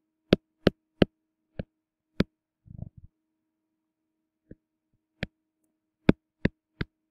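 Sharp, irregular clicks as numbers and a line are handwritten on a screen, about ten in all: a quick run in the first two seconds, a pause, then several more near the end. A soft rustle comes about three seconds in, and a faint steady hum runs underneath.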